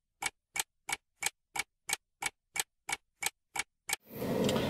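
Clock-ticking sound effect: sharp, even ticks about three a second. It cuts off about four seconds in, giving way to the steady hum of a car interior.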